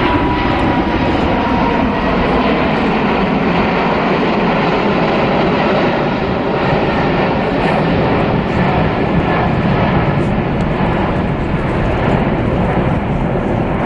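Jet noise from the Airbus A380's four turbofan engines as the airliner flies past: a loud, steady rush of sound, with a faint high whine in the first couple of seconds.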